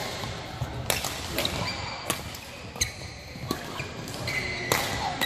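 Badminton rackets striking a shuttlecock in a fast doubles rally: about six sharp cracks at uneven intervals of half a second to a second. A court shoe squeaks on the floor near the end.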